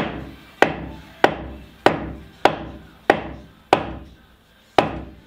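A small sledgehammer pounds a wooden block held against a timber post, driving the tight-fitting post sideways into position. There are eight sharp blows, about one every 0.6 s, each with a short ringing tail, and a slightly longer pause before the last.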